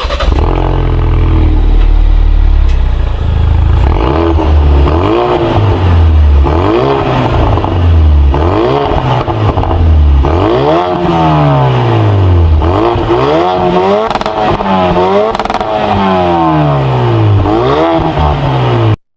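Racing car engine revving hard, its pitch repeatedly climbing and then dropping sharply as it shifts up and lifts off, with quicker up-and-down swings in the second half.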